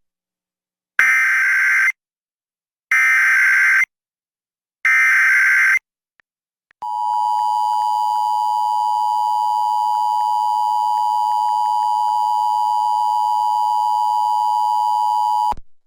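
Emergency Alert System SAME header: three one-second bursts of screeching digital data. They are followed by the EAS two-tone attention signal (853 and 960 Hz), which sounds as one steady harsh tone for about nine seconds and then cuts off sharply. Together they mark the start of a Required Monthly Test alert broadcast over AM radio.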